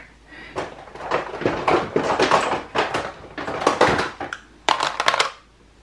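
Rummaging through makeup: hard plastic eyeshadow compacts and cases rustling and clacking against each other and the counter, with many sharp clicks.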